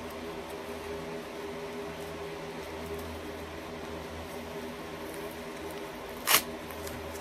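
Plastic wrapping on a lift-kit part being handled and unwrapped, with one sharp crinkle about six seconds in, over a steady low hum.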